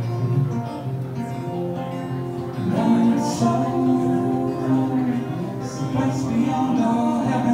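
Live acoustic music: a woman singing over a strummed acoustic guitar.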